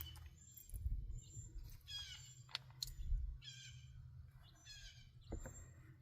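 A songbird singing: short chirping phrases that fall in pitch, repeated every second or so. Under it runs a low rumble, with a few sharp clicks about two and a half and five and a half seconds in.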